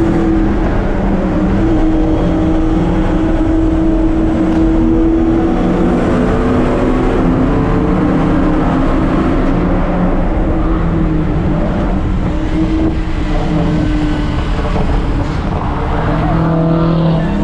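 Car engine running steadily while driving, a continuous drone with small shifts in pitch, likely the SRT Hellcat's supercharged V8.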